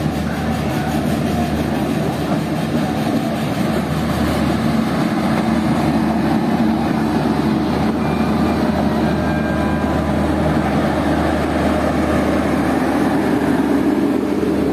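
Passenger train coaches rolling past on the rails, a steady rumble of wheels on track with a low hum.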